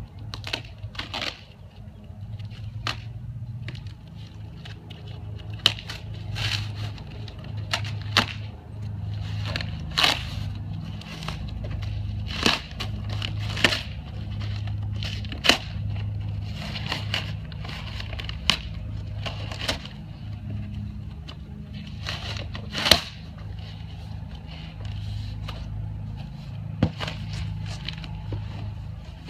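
A cardboard shipping box being cut and torn open, its flaps bending and its packing crackling, in an uneven string of sharp rustles, creaks and rips. A steady low hum runs underneath.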